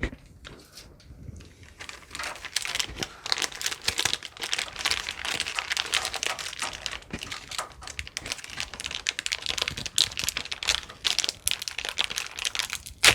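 Dense crinkling and clicking of plastic being handled while computer parts and cables are worked into place, with one sharp click just before the end.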